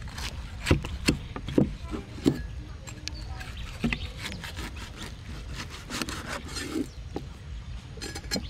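Cleaver sawing through crispy roast pork belly on a thick wooden chopping board, the crackling skin giving several sharp crunches in the first few seconds, then softer cutting and scraping.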